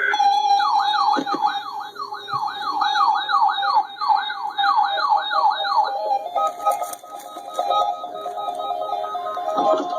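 Weather radio alert alarms going off, set off by the NOAA Weather Radio Required Weekly Test. First comes a siren-like tone that sweeps upward over and over, about two and a half times a second. About six seconds in it gives way to a different pulsing, warbling beep pattern.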